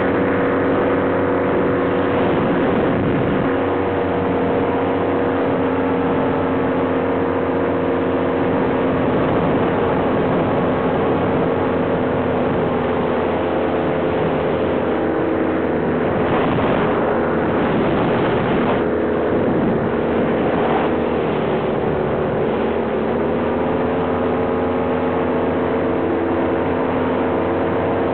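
Engine of a small propeller aircraft running steadily at constant throttle, heard from on board, with wind rushing over the microphone at times, most about two-thirds through.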